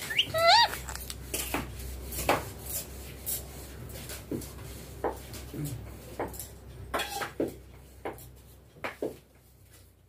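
Indian ringneck parakeet giving a short, pitch-bending whistled call, then a scattered run of light, sharp clicks and taps as it works its beak at the wire cage bars, fading toward the end.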